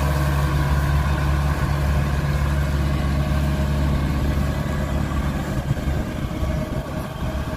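Heavy vehicle engine running at a steady speed, a low drone that eases slightly near the end.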